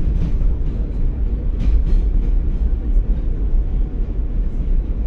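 New York City Q subway train running along the track, heard from inside the car as a steady low rumble, with a couple of faint clicks about two seconds in.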